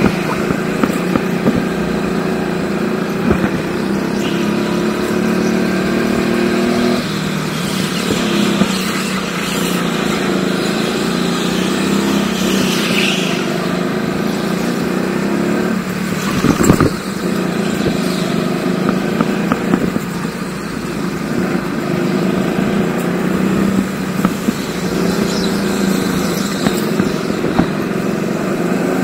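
Go-kart engine running hard on track, its pitch rising and falling as it accelerates and slows through the corners. A sharp knock stands out about two-thirds of the way through.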